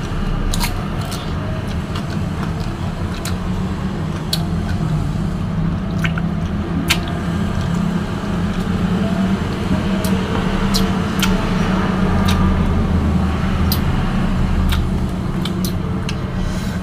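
Wet, squishy chewing and biting of juicy mango pieces, with scattered sharp clicks, over a steady low rumble.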